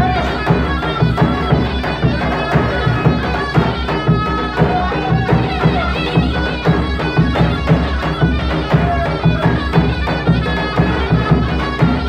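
Live Turkish folk dance music for a Bayburt bar: a davul drum beats a steady, regular rhythm under a melody instrument playing the tune.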